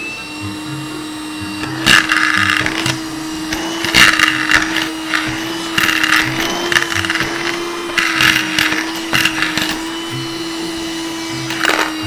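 A 12-volt handheld car vacuum cleaner spins up and runs with a steady motor whine. Every couple of seconds coins rattle loudly as the nozzle sucks them up into the canister.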